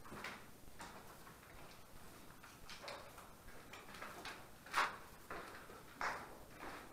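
Faint, irregular scuffs and crunches, about one or two a second, the loudest a little under five seconds in.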